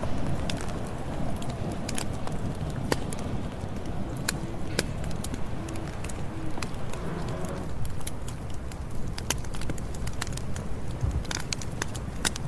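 Campfire burning, with wood crackling and popping in irregular sharp snaps over a steady low rumble of flame.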